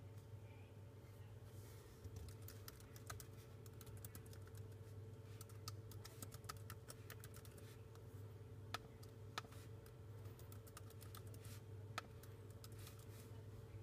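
Typing on a MacBook Air laptop keyboard: soft, irregular key clicks with a few louder taps, over a faint steady hum.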